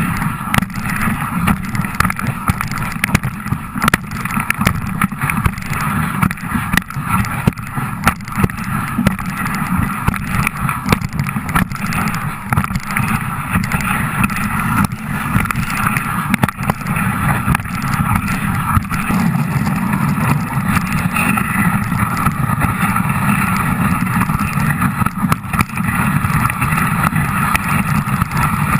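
Dog sled running over a packed snow trail: a loud, steady scraping rumble from the runners, broken by frequent small knocks and rattles as the sled jolts.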